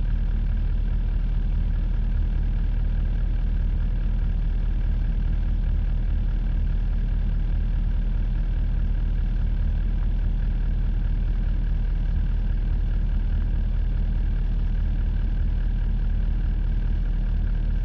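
Vehicle engine idling, a steady low drone that does not change in pitch or level.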